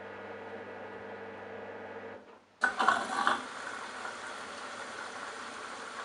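Candy Bianca washing machine: a steady low hum from the machine stops about two seconds in. After a brief hush the water inlet opens with a sudden clatter and water rushes into the drum with a steady hiss as the machine fills.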